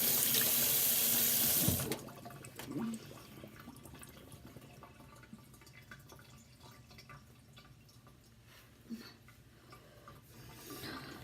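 Kitchen tap running into a sink, shut off suddenly about two seconds in; a few faint knocks and handling noises follow.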